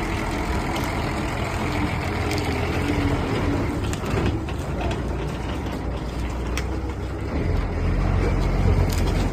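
Bus engine running as the bus drives slowly out, a steady low rumble that grows a little louder near the end.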